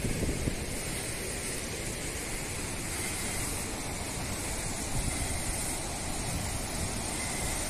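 Steady outdoor rushing noise, with wind buffeting the microphone as an uneven low rumble.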